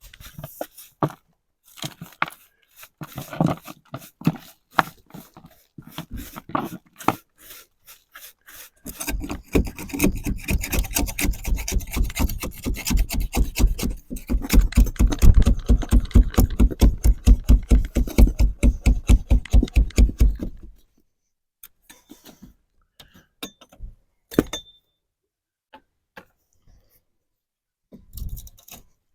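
Hand scraping of old caulking on a wooden window frame: short rapid back-and-forth scraping strokes, about five a second, in a long loud run midway, with scattered single scrapes and taps before and after.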